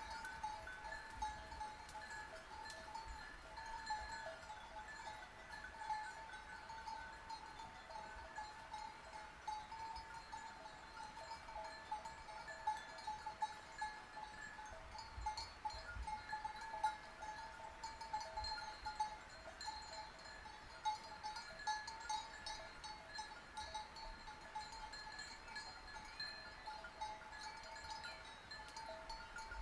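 Sheep bells clanking continuously in an irregular jangle, their ringing tones overlapping without a break.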